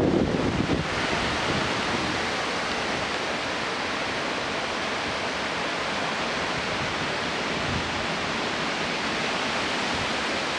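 Severe thunderstorm's high wind and rain, a steady rushing roar that eases slightly after a stronger gust in the first second.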